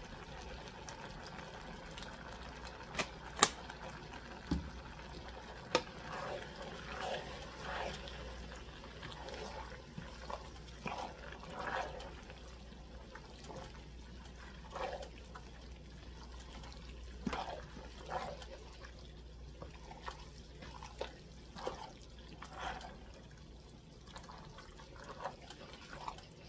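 Spaghetti sauce pouring out of its jar into a pot of cabbage and pasta, then a wooden spoon stirring the wet, saucy mix in irregular strokes. A few sharp knocks sound about three to six seconds in.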